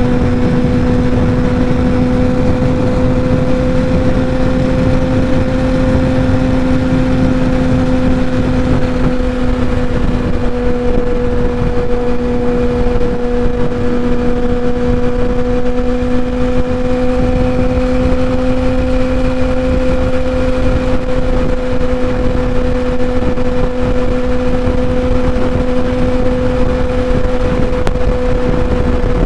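Kawasaki ZX-10R's inline-four engine, breathing through a Graves full titanium race exhaust, holding a steady cruising note at freeway speed, its pitch drifting only slightly, over a low rush of wind and road noise.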